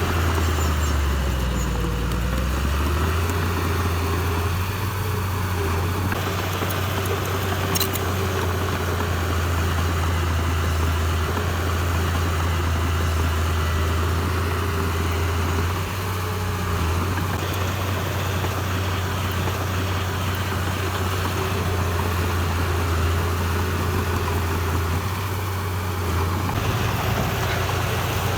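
Diesel engine of heavy construction machinery running steadily, a deep low drone with a faint higher tone over it.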